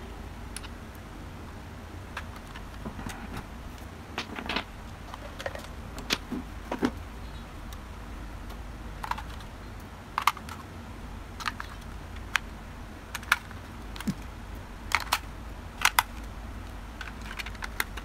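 Irregular sharp plastic clicks and taps from a toy RC helicopter's plastic transmitter being handled, as its battery compartment is worked and its back cover is fitted. The clicks come scattered, some in quick pairs, mostly from a few seconds in until near the end.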